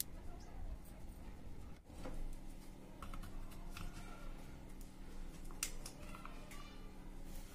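Scattered small clicks and light handling noise over a low steady hum. After a brief break about two seconds in the hum sets in, and the sharpest click comes about five and a half seconds in.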